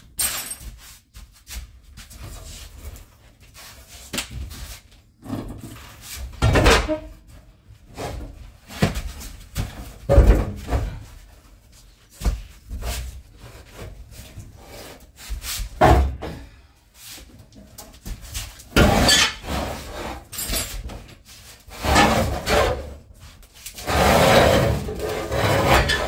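Irregular knocks, thuds and scraping as panels and fittings are handled and pulled out in the bare metal cargo area of a VW Crafter van, with a longer scrape near the end.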